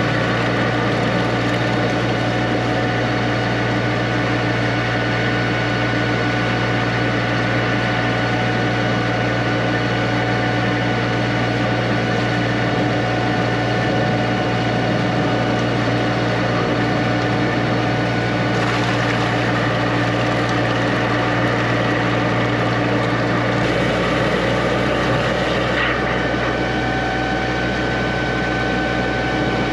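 High-pressure drain jetter (a 4000 psi, 12 gpm unit) running steadily with a constant engine-and-pump hum while jetting, its note shifting slightly about three-quarters of the way through.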